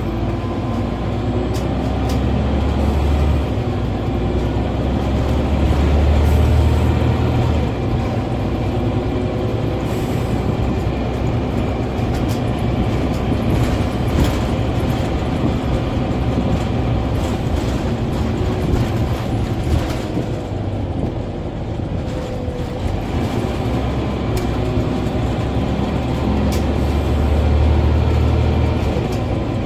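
Interior sound of a Scania N94UB OmniCity bus on the move: its five-cylinder diesel engine and driveline rumble over road noise, swelling as it pulls harder about six seconds in and again near the end. Occasional short knocks and rattles come from the body.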